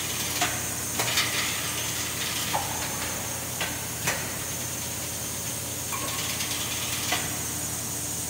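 Thermoforming machine's top platen cycling up and down over a steady machine hum. Sharp clicks and knocks mark its travel, and there are short hisses of air about a second in and again near the six-second mark.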